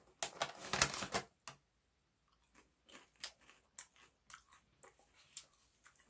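Foil snack bag crinkling as it is handled for about the first second, then faint scattered crackles and clicks.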